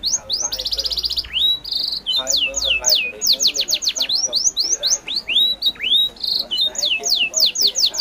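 Birds singing: rapid runs of high, downward-sweeping whistled notes, broken by short buzzy trills.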